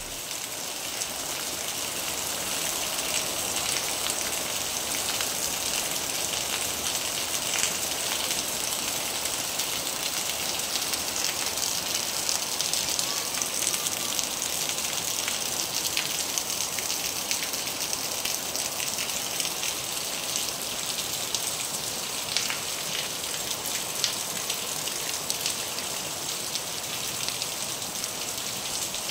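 Heavy rain falling steadily: a dense, even hiss of rain with scattered sharper drop ticks.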